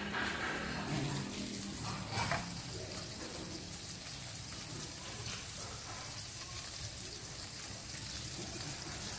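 Butter sizzling as it melts in a hot frying pan on a gas stove: a steady hiss, with a brief knock or scrape of the spatula about two seconds in.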